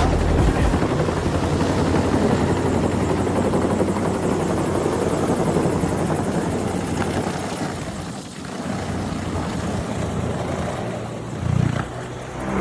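Helicopter flying close by: steady rotor and engine noise with a low drone, easing off about two-thirds of the way in and swelling briefly near the end.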